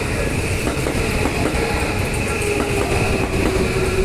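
Train running through a level crossing, a steady rumble of wheels on rails, with a tone underneath that drops slightly in pitch in the second half.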